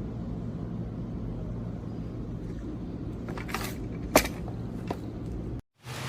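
A steady low hum with three short sharp clicks or knocks about a second apart past the middle, the second the loudest; the sound cuts off abruptly to silence near the end.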